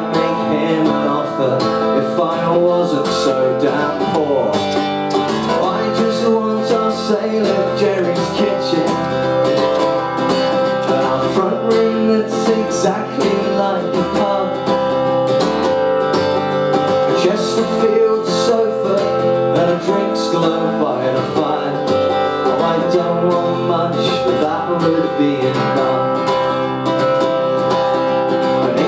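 Acoustic guitar strummed steadily in an instrumental break of a folk song.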